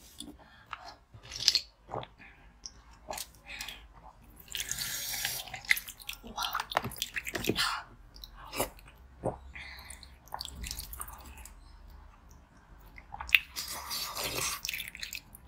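Biting and chewing into a block of frozen sports-drink ice: irregular crisp crunches, with a longer grinding crunch about five seconds in.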